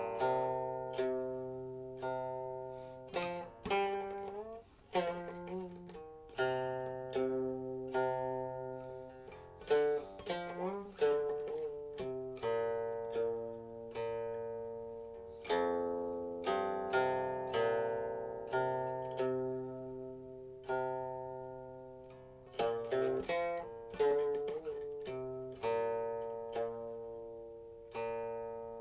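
Silk-string guqin played solo: single plucked notes that ring and fade, with the pitch of some held notes sliding and wavering as the stopping hand moves along the string.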